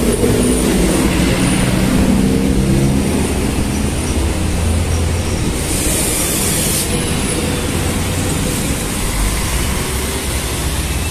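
City street traffic: a steady rumble of passing vehicles with engine hum, most marked in the first few seconds, and a brief hiss about six seconds in.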